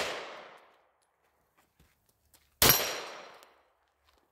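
Walther PDP 9mm semi-automatic pistol fired once, about two and a half seconds in: a sharp crack whose report trails off over about a second. At the start, the tail of the previous shot is still dying away.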